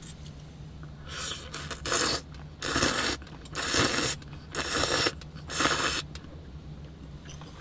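Five short scraping strokes, each about half a second long and about a second apart.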